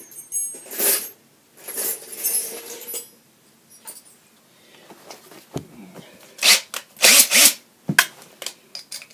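Short bursts of rustling and handling noise, a few in the first three seconds and a louder cluster near the end.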